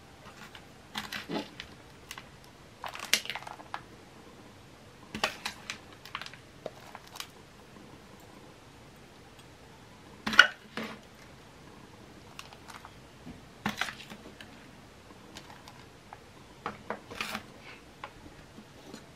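Gritty potting mix being scooped with a spoon and poured into a plastic plant pot to bury a Zamioculcas tuber while repotting: short bursts of scraping and rattling grit with light knocks on the pot, in clusters a couple of seconds apart. The loudest clatter comes about ten seconds in.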